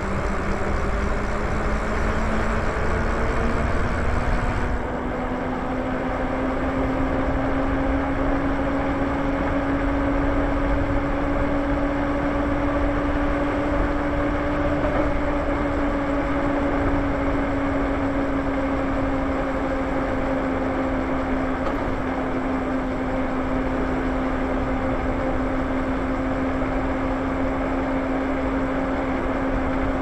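Lyric Graffiti e-bike's electric motor whining steadily under power, its pitch rising as the bike gathers speed over the first half and easing slightly later. A constant rush of wind and tyre noise runs beneath it.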